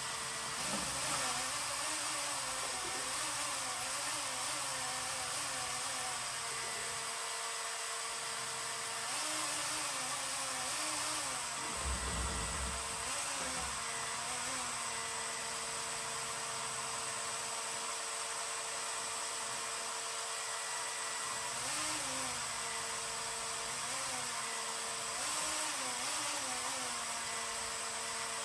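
Small electric paint mixer motor running slowly, stirring catalyst into 2K primer, its whine wavering up and down in pitch in short spells over a steady airy hiss.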